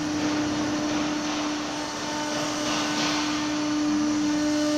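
Automatic tool-change CNC wood router running: a steady high spindle whine over a steady rushing noise.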